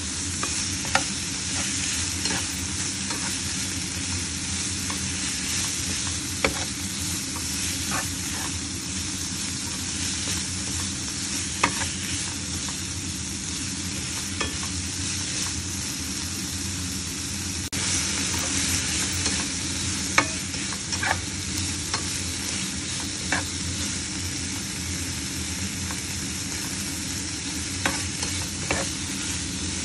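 Beef chunks with onion and chilies sizzling in a hot oiled pan, with a steady hiss. A spatula stirs them, clicking and scraping against the pan now and then.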